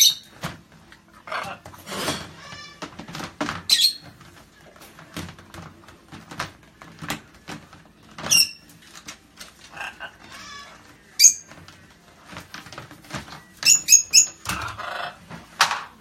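Macaws' beaks knocking, clicking and scraping on the hard plastic lid of a storage tub as they pry it off, with short, high parrot squawks several times.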